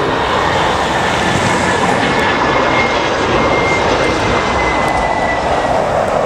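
Jet airliner's engines running loud and steady as it passes, a broad roar with a thin high whine that drifts slightly down in pitch.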